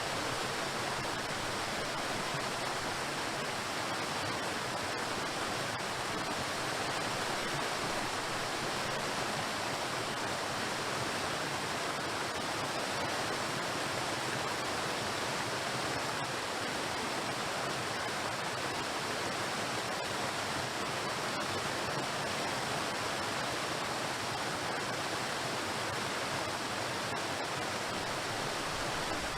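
Waterfall: water pouring and splashing onto rocks in a steady, unbroken rush.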